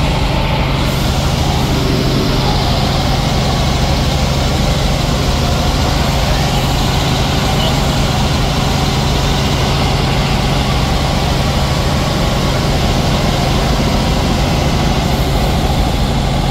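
Robinson R44 helicopter in cruise flight, heard from inside the cabin: the steady, loud drone of engine and rotors with a strong constant low hum.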